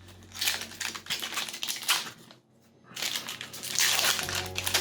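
Crinkling and rustling of a Pokémon booster pack's foil wrapper and cards being handled, in two spells with a short lull about two seconds in.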